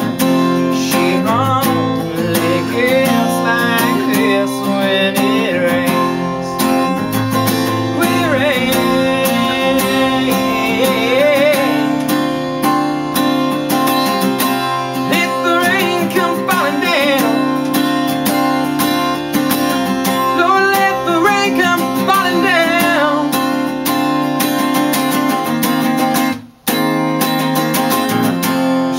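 Acoustic guitar played steadily with a man's voice singing over it. The sound cuts out for a moment near the end, then resumes.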